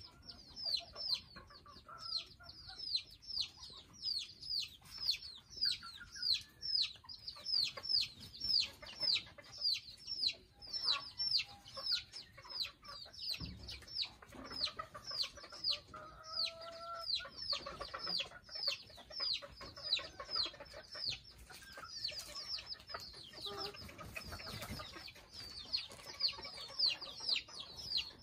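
Bantam chickens in a yard: a steady run of high, falling chirps, about two or three a second, with occasional lower clucks.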